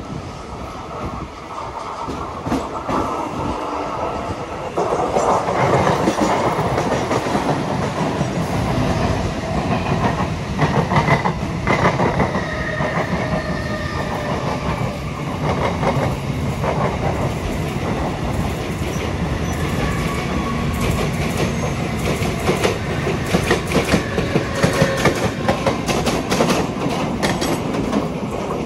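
Mumbai suburban local train (electric multiple unit) running at speed, heard from its open doorway: a steady rumble with clickety-clack of the wheels over rail joints. It gets louder about five seconds in.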